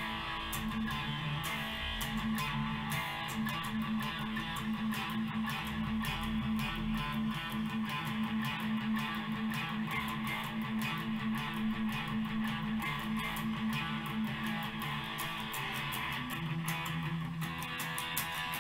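Electric guitar played through an amplifier: many fast picked notes over a steady low note, the playing shifting about a second before the end.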